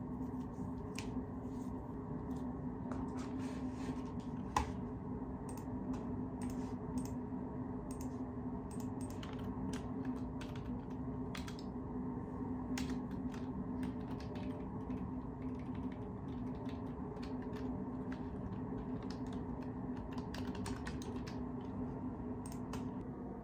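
Typing on a computer keyboard: irregular keystroke clicks, some in quick runs, over a steady low background hum.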